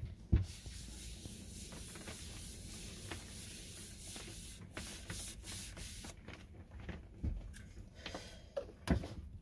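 Cloth rubbing Danish oil into a wooden board: a steady scrubbing hiss that stops about six seconds in. A sharp knock comes about half a second in, and a few light knocks follow near the end.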